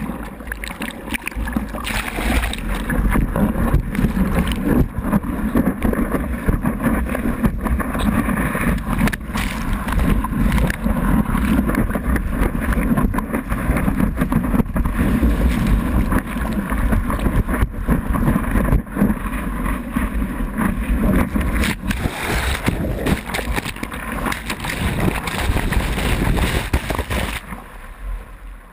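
Seawater rushing and splashing around a surfboard, with wind buffeting the microphone, as a surfer paddles and rides a wave. Near the end the sound drops and dulls as the board goes into the whitewater.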